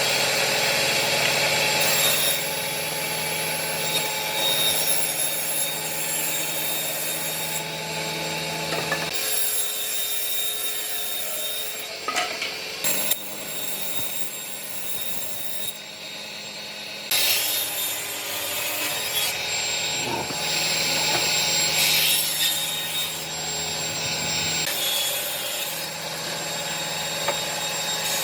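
Wood being cut or sanded by a power tool: a steady motor hum with rasping noise from the wood, stopping and starting several times.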